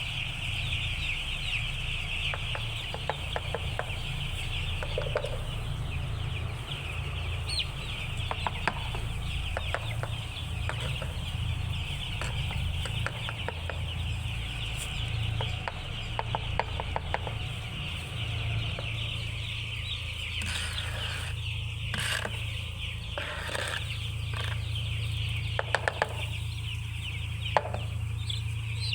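A large flock of chickens calling continuously, a dense mass of overlapping clucks and cheeps, over a steady low hum, with scattered short clicks and taps.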